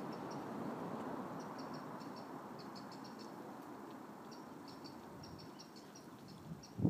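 Small bird chirping: short high notes in quick groups of two or three, over a low steady rush that slowly fades. A low thump at the very end.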